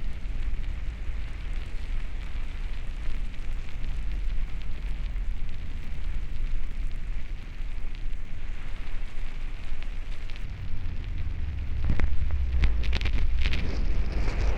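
Hydrophone recording under the water of a mountain spring welling up through sand, with bubbles rising: a steady low rumble under a fizzing crackle. About twelve seconds in, a cluster of louder clicks and crackles joins it.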